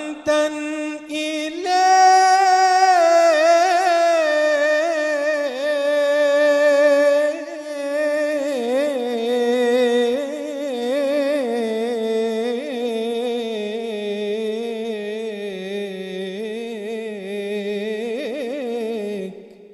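Unaccompanied male voice singing Islamic devotional inshad, drawing one word out into a long ornamented melisma with quick wavering turns. The pitch starts high and sinks gradually lower, and the voice fades out at the very end.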